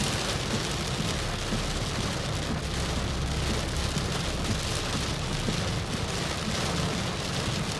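Heavy rain beating on a car's roof and windscreen, heard from inside the cabin as a steady hiss, with a low rumble underneath that swells around the middle.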